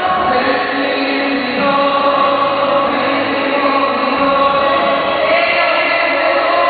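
Live Catholic worship song: a slow sung melody with long held notes, many voices singing together as a large crowd joins in.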